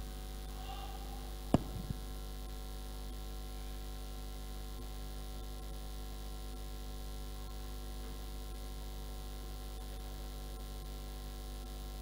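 Steady electrical mains hum from the microphone and sound system, with one sharp knock about a second and a half in as the handheld microphone is handled.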